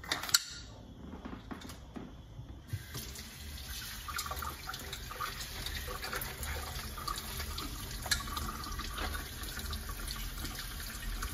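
Kitchen faucet running onto snow crab legs in a metal colander in the sink, the water splashing as they are rinsed. A sharp knock comes near the start, and the tap's steady rush comes on suddenly about three seconds in.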